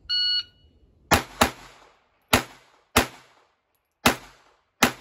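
A shot timer beeps once, then a Sig P322 .22LR pistol fires six shots in three pairs, each pair more widely spaced than the last: about a quarter second apart, then a half second, then nearly a second, pacing the shooter from fast to slow.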